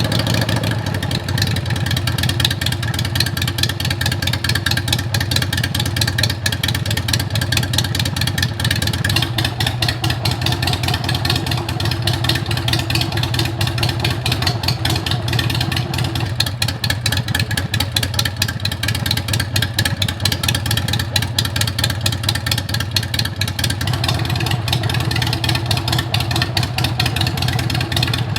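Harley-Davidson Sportster 883's air-cooled V-twin running steadily through new shotgun exhaust pipes, a dense, even pulsing exhaust note.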